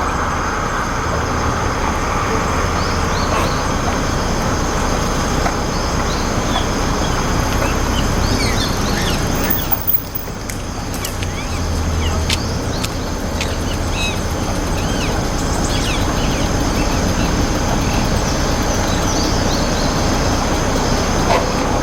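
A steady rumble of distant road traffic, with short high calls of rose-ringed parakeets scattered through it.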